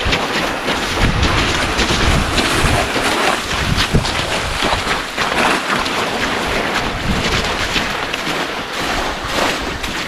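Wind buffeting the microphone in a steady low rumble, with boots stepping on lake ice.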